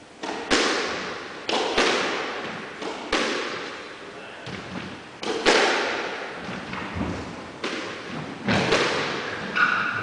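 Squash rally: the ball hitting rackets and the court walls, sharp hits about every second or so, often in quick pairs, each with an echo in the court.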